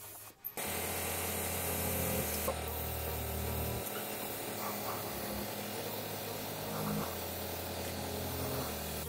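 Gravity-feed air spray gun hissing steadily as it sprays paint, starting about half a second in.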